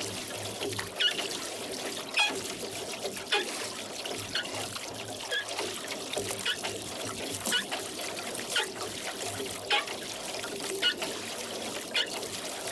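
Oars rowing a boat at a steady pace, about one stroke a second, each stroke marked by a short sharp knock or splash. Water drips and trickles off the blades in between.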